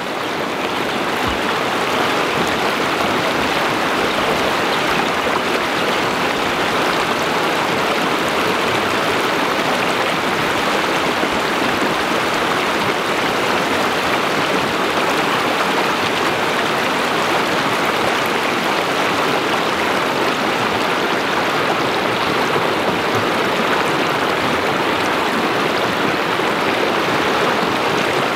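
River water rushing over a shallow rocky rapid, a steady even rush that swells up over the first couple of seconds and then holds.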